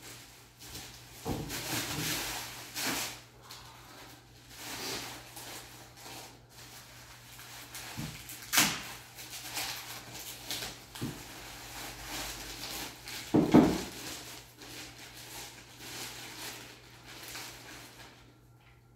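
Crumpled packing paper and plastic rustling and crinkling in irregular bursts as a rifle is unwrapped from it. About two-thirds of the way through there is a louder thump as the rifle is lifted out.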